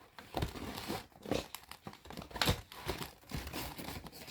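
Packaging crinkling and tearing in irregular bursts as the next item is unwrapped by hand.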